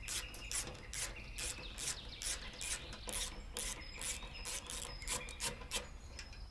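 Red-handled ratcheting socket driver clicking as a 10 mm bolt is turned out, a rasping click about three or four times a second that stops near the end.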